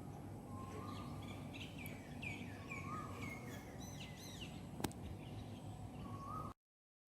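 Birds chirping in a series of short falling calls over a steady low background noise, with a single sharp click a little before five seconds in. The sound cuts off suddenly near the end.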